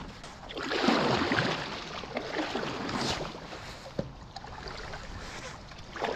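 Starboard inflatable stand-up paddle board being slid off the snowy bank into the river, with a rush of scraping and splashing about a second in, then softer water and handling sounds and a single knock near the four-second mark.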